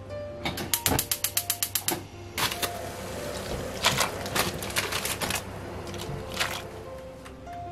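Quick, even run of knife strokes on a cutting board, about eight a second for a second and a half, typical of chopping a vegetable such as green onion. Scattered single knocks follow.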